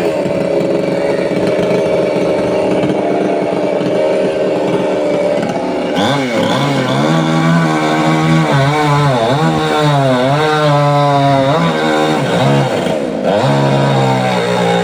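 Two-stroke chainsaw running at high speed, first steady, then dipping and recovering in pitch over and over, as it does when the chain is under load in wood, with a short break near the end.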